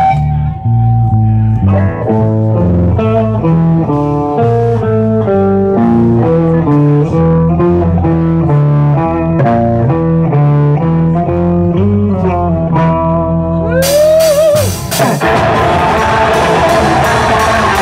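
Live metal band: electric guitar and bass guitar play a picked riff one note at a time without drums. About 14 seconds in, a guitar note bends upward and the full band comes in loud, with drums and cymbals.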